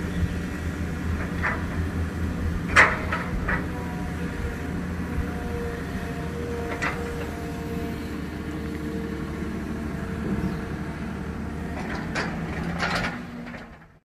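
Excavator's diesel engine running steadily under load, with sharp clanks from the working machine, the loudest about three seconds in and a cluster near the end. The sound cuts off just before the end.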